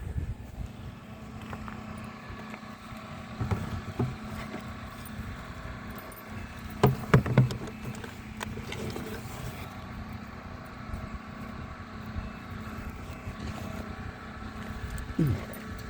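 A vehicle engine idling steadily, with a few short knocks and clicks, the loudest cluster about halfway through.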